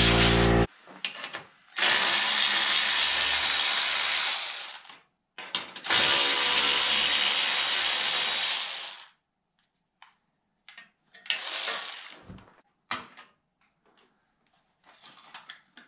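Compressed air from a blow gun blasting dust off a compact diesel tractor engine: two long blasts of about three seconds each, then a shorter blast and a few scattered clicks.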